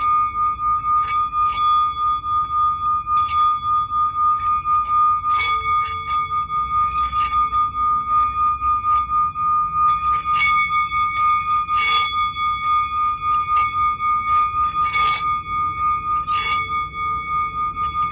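Healing-sound music: a steady high ringing tone with a quick pulsing wobble, with short struck ticks scattered irregularly over it.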